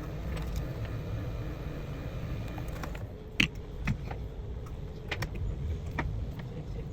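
Scattered light clicks and taps, the sharpest about three and a half seconds in, over a steady low rumble.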